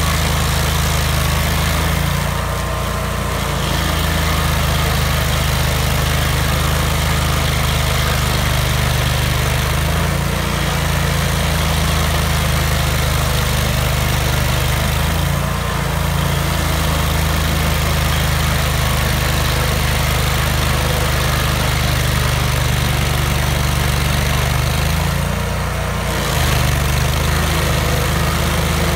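Vermeer stump grinder's engine running steadily at working speed, its note shifting briefly about four times as the cutter wheel is worked against a stump.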